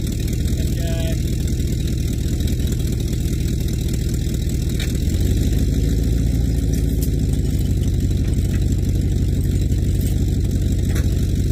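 A motor vehicle engine idling steadily; about five seconds in its note changes and it gets a little louder.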